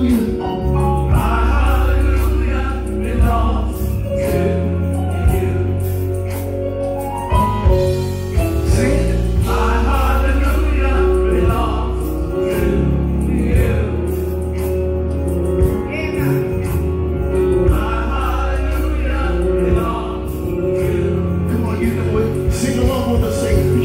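Gospel praise team of mixed men's and women's voices singing together into microphones over instrumental backing with a sustained bass line.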